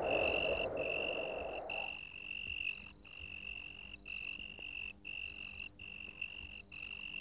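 Night ambience sound effect: a high, steady animal trill broken by short gaps about once a second. The tail of the background score fades out over the first two seconds.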